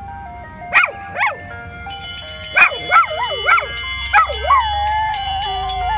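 Small dog howling along with an ice cream truck's electronic jingle. It gives a run of short rising-and-falling howls, then one long held howl near the end. The jingle steps from note to note and gets louder about two seconds in.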